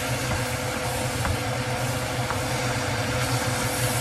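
Beef and vegetables sizzling in an enameled cast-iron Dutch oven as a wooden spoon stirs them, with a couple of light knocks of the spoon against the pot. A steady low hum runs underneath.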